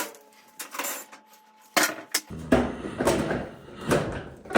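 A string of sharp metallic clinks and knocks, tools and screws being handled against the metal panels of a clothes dryer being taken apart, with a low rumble of handling from about halfway through.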